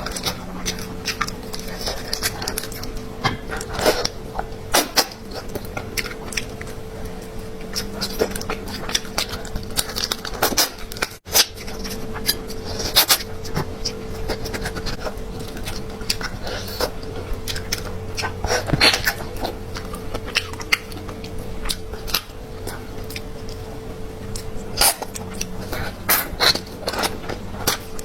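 Close-miked eating sounds of someone chewing spicy rabbit head: irregular wet clicks, crackles and smacks at uneven intervals, over a steady low hum.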